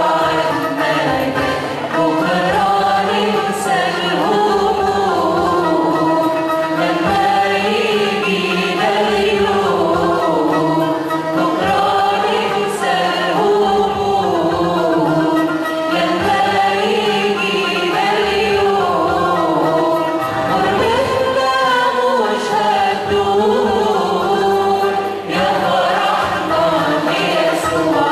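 Church choir singing an Arabic Christian hymn in unison, with instrumental accompaniment.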